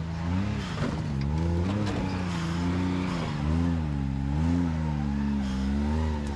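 Side-by-side UTV engine running at low revs while rock crawling, its pitch rising and falling about once a second with short pulses of throttle.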